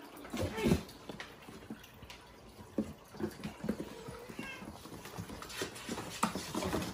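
Bengal kittens scrambling over and inside a cardboard box: irregular scratching of claws and knocks of feet on the cardboard, with the loudest knock a little after the start.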